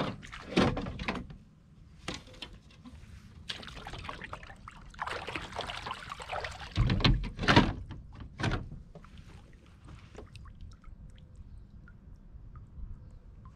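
Water splashing and pouring at the side of a plastic fishing kayak as a hand dips into the water, then three thuds, with a few smaller knocks of gear being handled.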